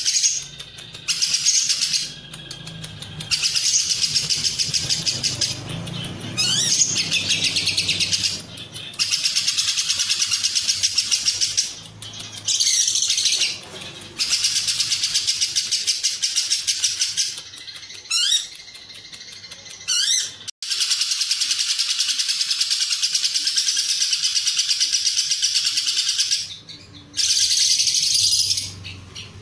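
Lovebird ngekek song: long runs of rapid, buzzy, high-pitched chattering several seconds long, with short pauses between runs and a few quick rising whistles mixed in, the fill the bird has learned from cililin calls.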